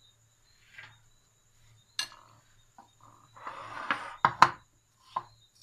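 Metal spoon and ceramic plates knocking and scraping on a stone countertop: a few light clicks, a scraping rustle, then two sharp knocks about four seconds in.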